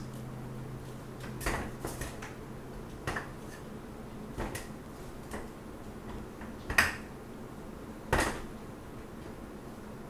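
Soft plastic squeeze bottle of acrylic pouring paint being squeezed as a thin line of paint is drizzled out: a handful of short, scattered squelches and clicks, the two loudest about two-thirds of the way through.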